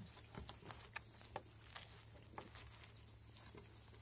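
Near silence with faint scattered clicks and small rustles of people eating from a shared plate by hand, tearing bread and scooping up stew.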